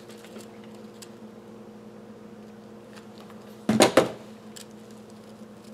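A hot glue gun set down on a wooden tabletop: a short clatter of hard plastic knocks about two-thirds of the way in, with a few faint handling ticks and a steady low hum underneath.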